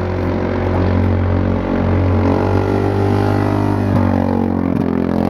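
Very loud engine with a loud exhaust as the vehicle drives past fast. Its pitch falls in the middle as it decelerates, with a couple of sharp exhaust pops near the end.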